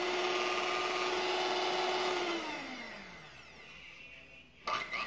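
Kaisa Villa electric hand mixer running with a steady whine, then switched off about two seconds in, its pitch falling as the motor and beaters spin down. A brief short sound near the end.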